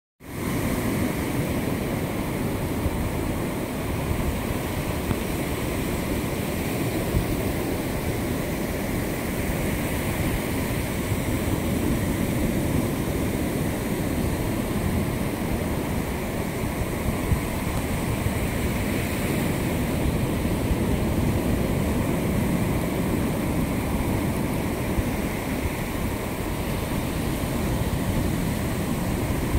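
Steady roar of surf and wind on an open beach, with wind rumbling on the microphone.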